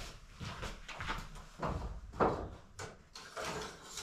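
A series of short knocks and scrapes from handling a chainsaw and its guide bar, with the most prominent knock a little past two seconds in.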